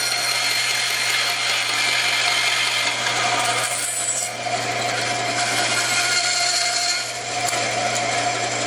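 Band saw with a half-inch blade running and cutting into the end of a wooden board in short passes, nibbling out a narrow groove, over a steady motor hum. The cutting noise dips briefly about four seconds in and again near seven seconds.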